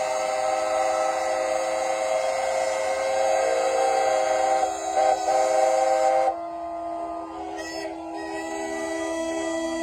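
Many steam engine whistles blowing together at once, a dense chord of steady pitches. About six seconds in most of them cut off suddenly. A few quieter whistles keep sounding, one of them giving short repeated toots.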